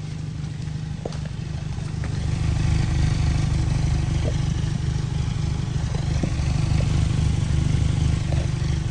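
Nissan Sentra's four-cylinder engine idling, a low, steady exhaust rumble through the newly replaced muffler; quiet, the way it is supposed to run. It gets louder about two seconds in.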